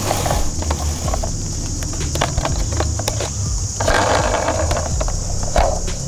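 A plastic toy ambulance is picked up and handled, giving scattered small clicks and knocks and a brief rustle about four seconds in. A steady high hiss and a low rumble run underneath.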